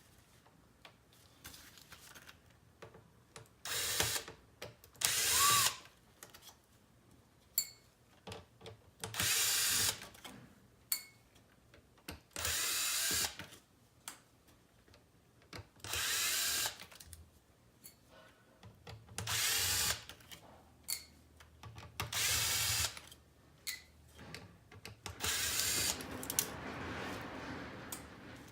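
Small power screwdriver running in short whirring bursts about a second long, eight times, each backing out a screw from the unit's housing. There are faint light clicks between the bursts.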